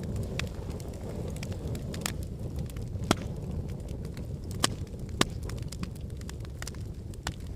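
Fireplace fire crackling: a steady low rumble of flames with irregular sharp pops and snaps, the loudest a little after three seconds in and twice around five seconds.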